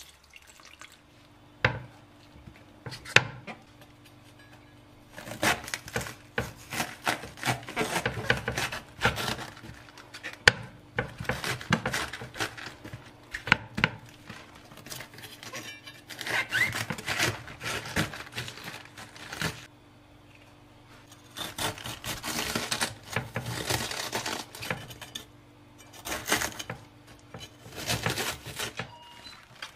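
A knife cutting into the core of a raw cabbage on a wooden board: crisp crunching and cracking of the firm stalk and leaves, in two long runs with a short pause between them. A couple of sharp knocks come first, and a faint steady hum lies underneath.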